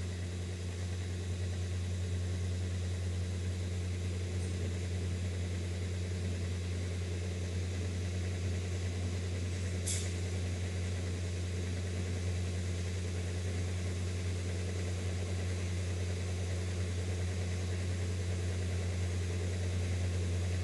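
Steady low hum, like a motor or electrical appliance running, unchanging throughout, with a single short click about ten seconds in.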